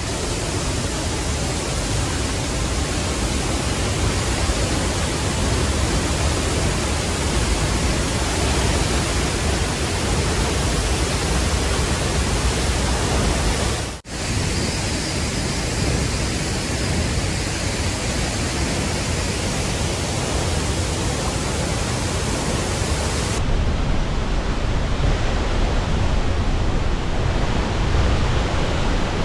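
A waterfall rushing steadily into its rocky plunge pool. There is a brief dropout about halfway through.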